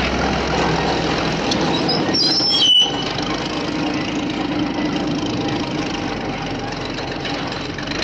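Heavy dump truck engine sound running steadily, with a short hiss and high squeal about three seconds in.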